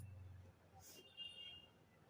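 Near silence: room tone, with a faint short hiss just under a second in.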